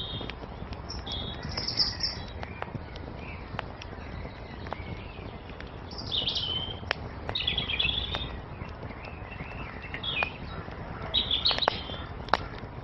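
Wood fire crackling with scattered sharp pops, while songbirds chirp and twitter in short bursts throughout, busiest in the second half.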